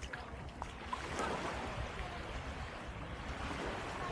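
Surf washing on the shore as a steady wash of noise, with an uneven low rumble underneath.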